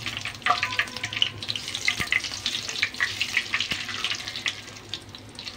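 Cumin seeds and dried red chillies sizzling and crackling in hot oil in a non-stick kadai: tempering spices for a tadka. A spatula stirs them, with a few sharp taps against the pan.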